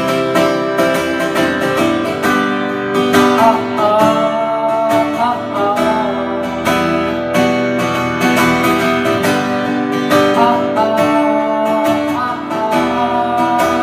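Acoustic guitar strumming chords in an instrumental passage of a live song, with a short melodic line about three to five seconds in.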